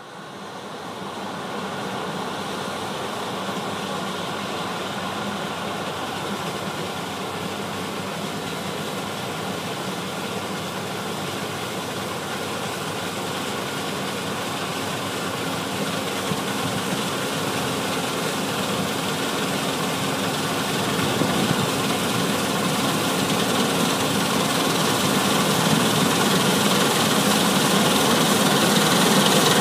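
New Holland combine harvester at work cutting wheat: a steady drone of engine and threshing machinery that grows steadily louder as the machine comes closer.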